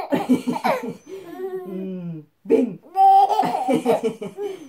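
Baby laughing hard: two long bouts of pulsed belly laughs with a short break between them, and a high squeal at the start of the second bout.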